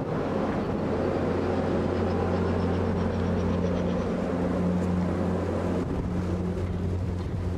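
A passenger ferry's engines drone steadily, heard from the open deck: a low hum under a wash of wind and sea noise.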